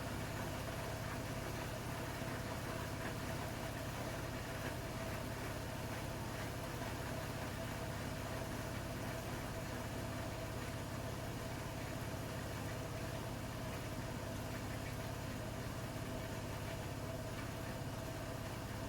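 Bosch iDos Serie 6 WAT286V0 washing machine with its EcoSilence Drive brushless motor running steadily: an even hum with one constant mid-pitched whine that holds without change.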